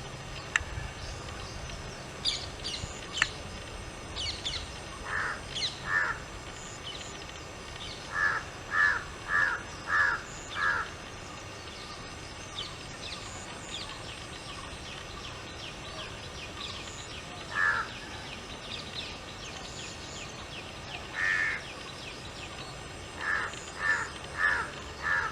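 Outdoor birdsong: runs of short, harsh bird calls about two a second, up to five in a row, with scattered higher, thinner chirps from other birds.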